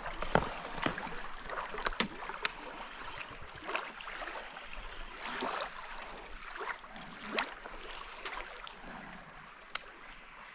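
Water moving around a kayak on a creek, with scattered light knocks and small splashes on and around the boat.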